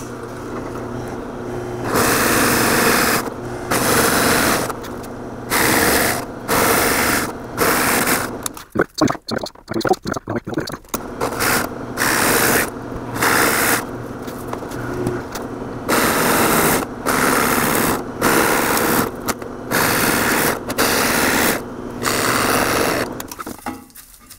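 Drill press running with a large Forstner bit, plunged again and again into a board to clear waste down to the depth stop. Each plunge gives a loud cutting noise of about a second over the steady motor hum, repeated more than a dozen times, with a few quick choppier cuts about nine to eleven seconds in.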